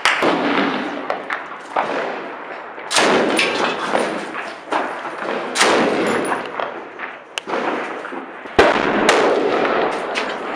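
Sporadic gunfire in a firefight: about ten single shots at irregular intervals, a second or two apart, each trailing off in a long echo. The loudest come around three, five and a half and eight and a half seconds in.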